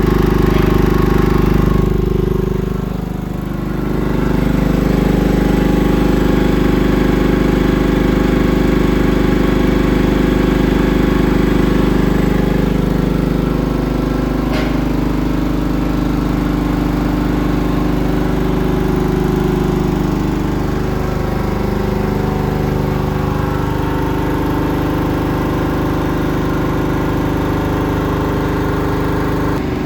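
Hatlapa V200 reciprocating marine air compressor running steadily on a test bench, with a brief dip in loudness about three seconds in and a single click near the middle.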